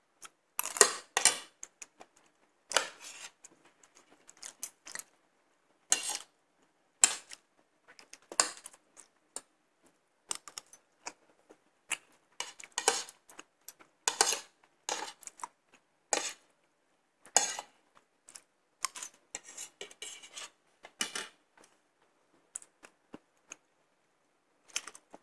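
Metal spoon and fork clinking and scraping against a ceramic plate while eating, in short, irregular strikes, with a lull of a couple of seconds near the end.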